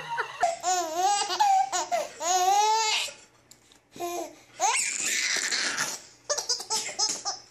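Baby laughing in repeated bouts of giggles, with a short lull about three seconds in.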